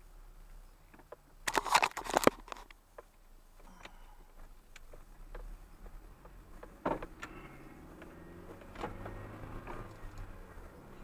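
A car heard from a dashcam inside the cabin: a burst of loud rattling knocks about two seconds in, then scattered light ticks. In the second half the car's engine hum strengthens as it pulls away and gathers speed.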